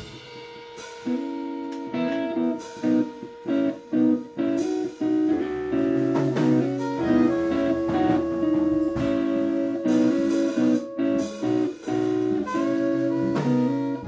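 Jazz band playing, a guitar to the fore in short choppy phrases over drums.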